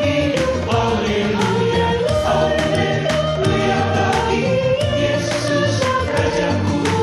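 Mixed choir of men's and women's voices singing a Christian hymn in unison over an instrumental backing, with sustained bass notes and a steady beat.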